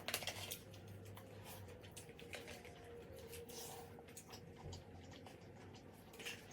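Faint eating sounds: soft wet chewing and small scattered clicks.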